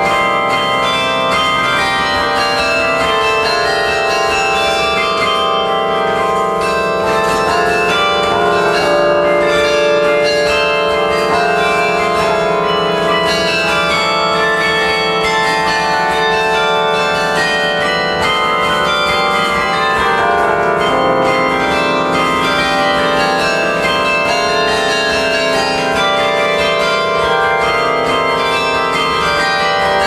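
Carillon of bronze bells played by hand from its baton keyboard: a continuous piece of music, with many bell notes struck in quick succession and overlapping as they ring on, melody and chords together.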